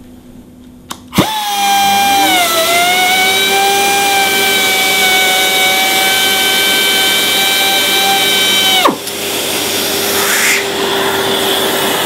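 Step sander's cutter motor starting about a second in and cutting into a glass-fibre composite laminate, its whine dipping in pitch and then holding steady. A dust-extraction vacuum on the sander's hose spins up with it and keeps running with a hum and hiss after the sander stops, about nine seconds in.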